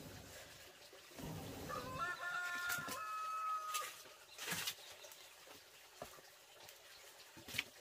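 A rooster crows once, a single call of about two seconds, starting about two seconds in. A few sharp knocks of firewood being handled sound around it.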